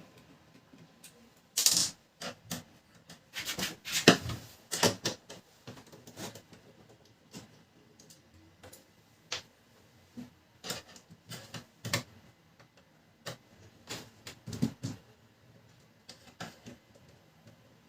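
Irregular clicks and knocks of plastic printer parts being handled and unclipped while a laser printer is taken apart to remove its fuser unit. There is a busy cluster of knocks in the first few seconds, then scattered single clicks.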